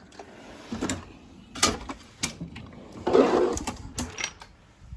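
Snap-on tool chest drawers sliding shut and open on their metal runners, with a series of sharp clicks and knocks and a louder rattling slide about three seconds in.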